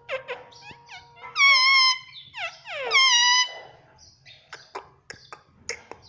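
Indian ringneck parakeet calling: a few short chirps, then two long, loud calls about a second and a half apart, each dropping in pitch and then holding. Soft short clicks follow in the second half.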